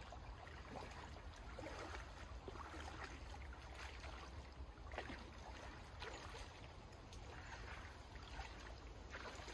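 Faint, irregular splashing and sloshing of legs wading through shallow lake water, over a steady low rumble.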